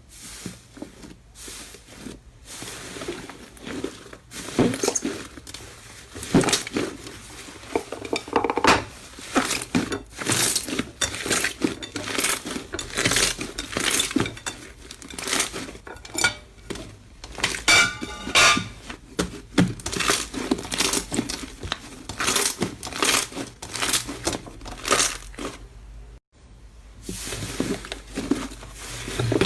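Slime being squeezed and poked by hand, giving a dense run of quick clicks, crackles and clinks, with a brief squeak partway through and a short break near the end.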